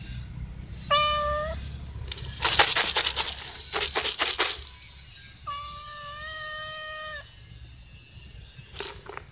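Domestic cats meowing to beg for food: a short meow about a second in, and a long, drawn-out steady meow past the middle. Between them comes a loud stretch of scratchy, hissy noise.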